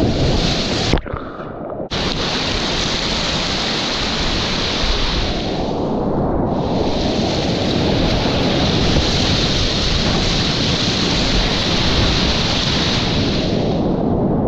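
Whitewater rapids rushing loudly around a kayak, a steady roar of churning water close to the camera. About a second in, the sound drops and muffles briefly before the roar returns. The upper hiss fades briefly near six seconds.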